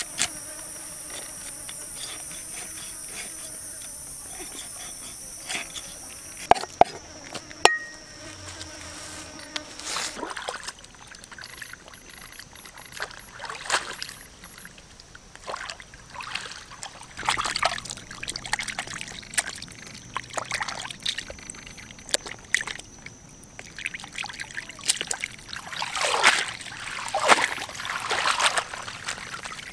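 Insects buzzing steadily with a high tone for the first six seconds or so. Then comes repeated water splashing and sloshing as fish are rinsed in a wicker basket dipped in a pond, loudest near the end.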